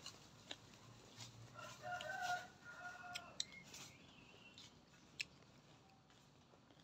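A rooster crowing once, starting about a second and a half in and lasting about a second and a half, heard faintly. A few sharp clicks sound here and there around it.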